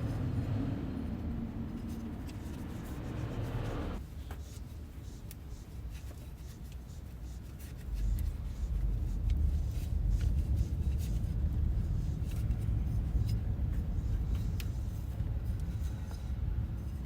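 Honda CBR1000RR motorcycle engine running, the sound being checked for an abnormal engine noise. A brighter, fuller part of the noise stops abruptly about four seconds in. A low rumble with scattered light clicks carries on and grows louder about eight seconds in.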